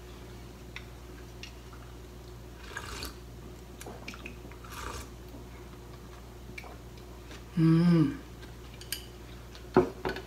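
Miso soup being sipped from a bowl: soft slurps, then a short hummed 'mm' about eight seconds in, and light clicks of chopsticks and bowl near the end.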